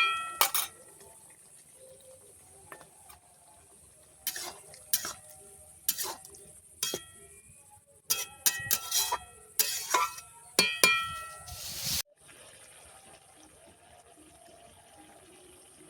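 A metal spoon clinking and scraping against a metal cooking pot as ground garam masala paste is added and stirred into the simmering curry, in irregular clusters of sharp ringing taps. About twelve seconds in the clinking stops, leaving only a faint steady hiss.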